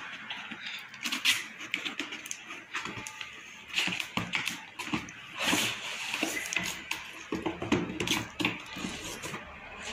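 Cardboard shipping box being handled and opened by hand: irregular rustling, scraping and light knocks of cardboard.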